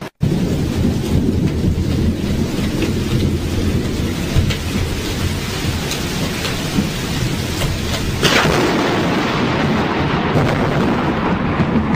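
Thunder rumbling continuously over steady rain. About eight seconds in comes a sharper crack, and after it the rumble grows louder.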